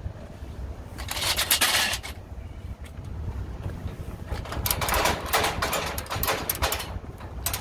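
Ratchet handle of a car-hauler wheel tie-down strap being cranked tight, giving rapid runs of metal clicks: a short run about a second in and a longer one from about four and a half seconds to seven. A low wind rumble sits underneath.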